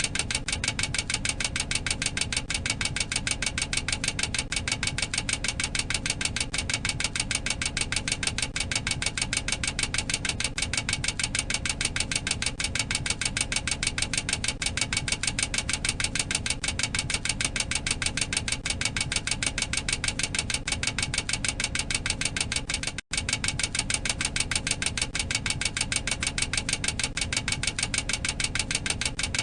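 Boeing 737-800 cockpit overspeed warning: the clacker sounding a rapid, steady clacking, many clacks a second, with a momentary break about three quarters of the way through. It warns that the aircraft has exceeded its maximum operating speed.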